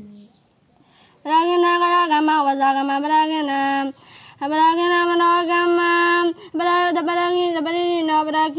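One voice chanting a melodic Buddhist verse in long, held notes. It starts about a second in and runs in three phrases with short breaks between them.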